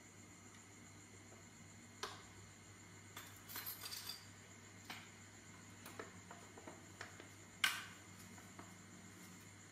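Faint scattered wet clicks and smacks from a baby monkey sucking on a milk bottle, the loudest about two-thirds of the way in, over a faint steady hum.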